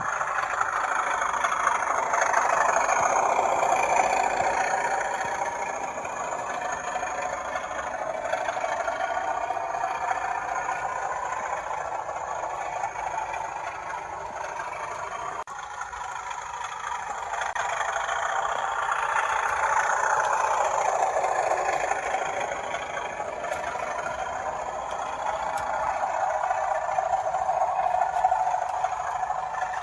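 00 gauge model train running on the track: wheels and motor make a steady whirring rumble that grows louder and falls in pitch as the train passes close, then fades. This happens about three times as it goes round the layout.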